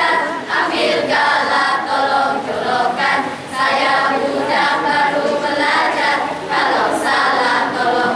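A school choral-speaking group of boys and girls singing and chanting together in unison, many voices at once, in Malay.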